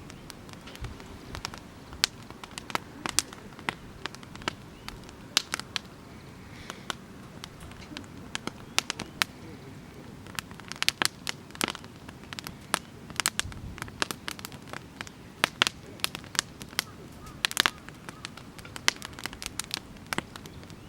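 Oak-log campfire crackling, with many irregular sharp pops and snaps.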